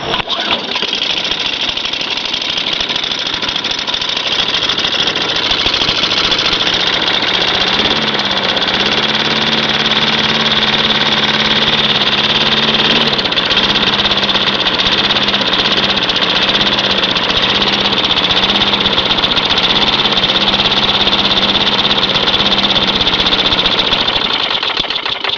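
Propane-fuelled lawn mower's small engine running on a cold, wet start, its pitch shifting slightly a couple of times, then dropping off near the end. The owner calls the mixture too much fuel.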